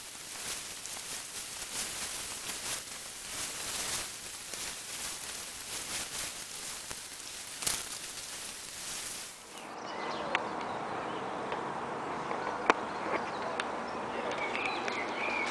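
Outdoor ambience run at time-lapse speed: a hiss full of rapid crackles. About ten seconds in it changes to real-time outdoor sound, a steadier noise with one sharp click and a few faint bird chirps near the end.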